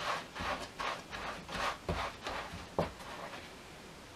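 Hands pressing pie crust dough into a small pie tin on a floured pastry cloth: soft, irregular rubbing and scuffing, with a few light clicks.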